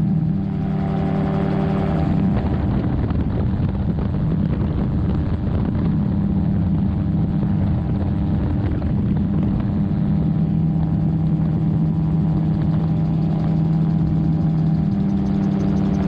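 Magni M16 gyroplane in cruise flight: the steady drone of its pusher engine and propeller, with a constant rush of wind over the microphone.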